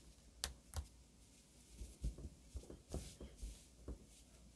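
Faint handling noises: a scattering of light taps and soft rustles as a crocheted bag and a phone are moved about on a tabletop.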